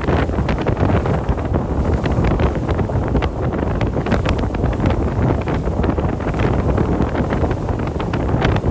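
Wind buffeting the microphone aboard a moving boat: a steady low rumble with many short rushes of noise, and the boat's running noise beneath it.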